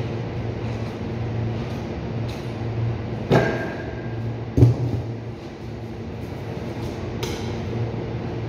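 Steady mechanical hum of a cold room's ceiling refrigeration unit. A little past the middle come two knocks about a second apart: the first has a short metallic ring, the second is a duller thump.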